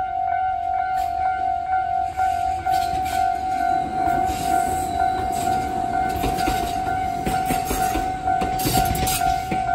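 Tobu Railway level-crossing alarm (Tobu's standard crossing tone) sounding a steady, repeating electronic ding. A train runs past from about three seconds in, its wheels rumbling and clicking louder over the rails.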